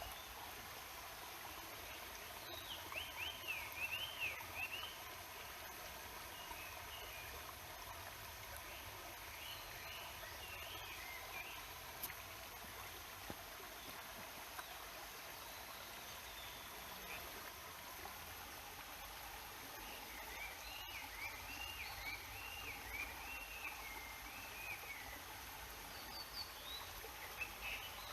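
Steady murmur of a flowing mountain stream, with a small bird singing quick warbled phrases in several bursts over it, the longest run about two thirds of the way through.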